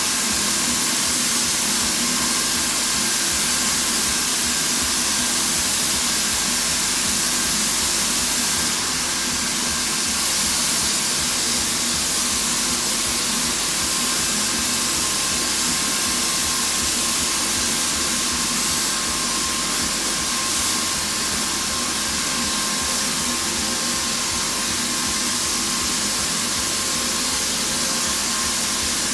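Bosch PFS 3000-2 paint-spray system running steadily: the hiss of air and paint spraying from the gun over the hum of its turbine unit.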